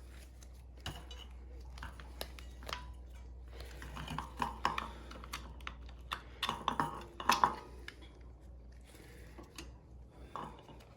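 Small metal parts clinking and clattering as old drum brake shoes are handled to take out a thin aluminium shim, the busiest clatter about four and again about seven seconds in.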